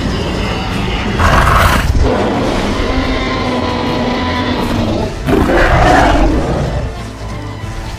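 Film-style dinosaur roar sound effects: two loud roars, about a second in and again about five seconds in, over a low rumble.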